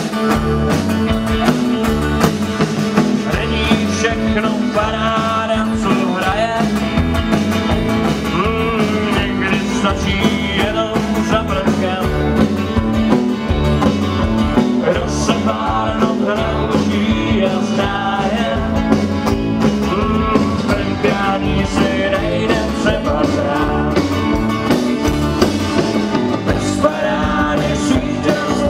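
Live country-rock band playing through PA speakers: electric guitars, bass and drums keeping a steady beat, with a sung vocal line.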